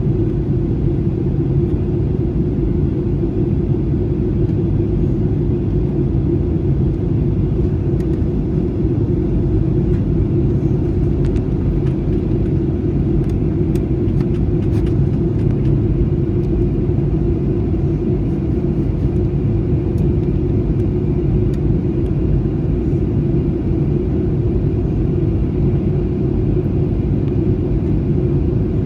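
Airliner cabin noise during descent: a steady, even rumble of engines and airflow heard from inside the passenger cabin, with a constant low hum.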